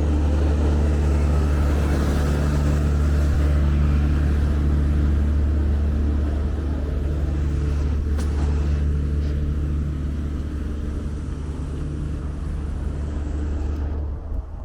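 A motor vehicle's engine running steadily close by: a loud, low drone with a steady hum above it that eases off a little in the second half.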